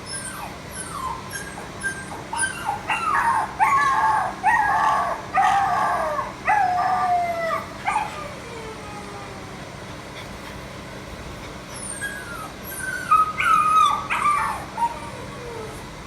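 A dog crying: a run of short whining, howling cries that slide down in pitch through the first half, then a second run of cries about twelve seconds in.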